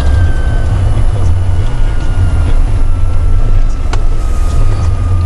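A car driving slowly, heard from inside the cabin: a steady low rumble of engine and road noise, with a faint whine that slowly falls in pitch. A single sharp click about four seconds in.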